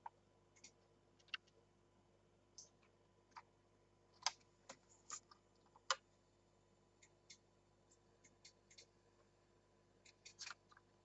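Scattered small clicks and ticks of model train boxes and packaging being handled, irregular and faint, the sharpest about four and six seconds in and a short cluster near the end.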